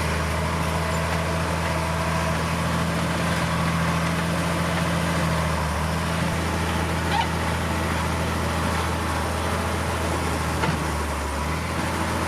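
Heavy diesel engine of earthmoving machinery running steadily at a constant speed, with two brief clicks partway through.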